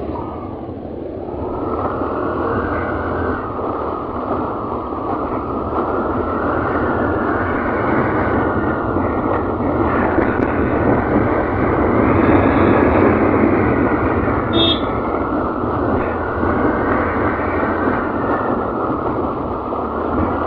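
Motorcycle riding at speed: a steady rush of wind over the microphone together with the running engine. It grows louder over the first two seconds, then holds.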